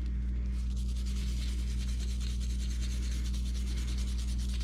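Brass wire brush scrubbing rapidly back and forth over a rusted steel tool, clearing out rust loosened by an Evaporust soak. A steady low electrical hum runs underneath.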